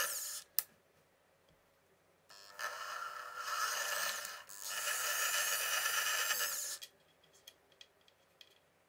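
Drill press with a small twist bit drilling into an aluminium square tube. A spell of cutting ends just after the start and a sharp click follows. About two seconds in the drilling starts again and runs for about four seconds, with a short break midway. Light clicks near the end as the part is handled.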